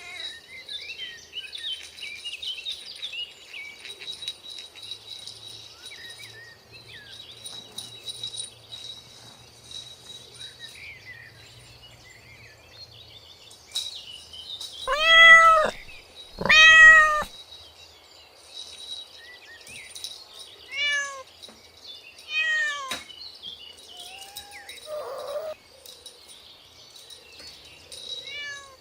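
Kittens meowing: two loud, drawn-out meows about halfway through, then several shorter, fainter meows, over faint high chirping.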